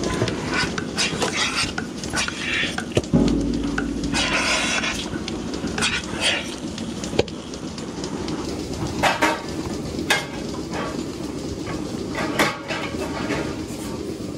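Milking-parlour equipment: a steady vacuum hiss from milking clusters and hoses being handled, with repeated metal clinks and clatter, and a heavy thump about three seconds in.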